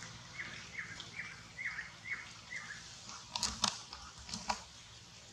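Outdoor animal calls: a quick run of six short chirps, each falling in pitch, followed by a few sharp clicks or snaps.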